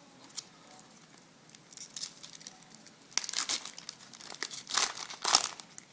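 Foil wrapper of a Topps Chrome baseball card pack being torn open and crinkled, in several short crackling bursts that grow louder after the first second and a half.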